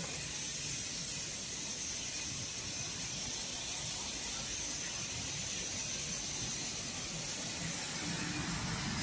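Steady hiss and hum of the machines on an SGJ1300R lacquer sanding line running, with no breaks or impacts.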